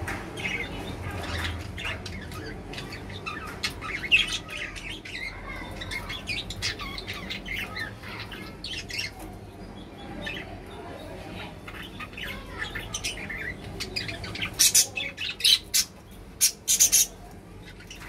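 Caged budgerigars chattering in many short, quick chirps, with a run of several loud, sharp calls near the end.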